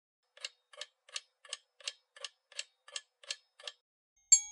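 Countdown-timer sound effect: clock ticks about three a second, ten in all, ending in a single bright bell-like chime that marks time up.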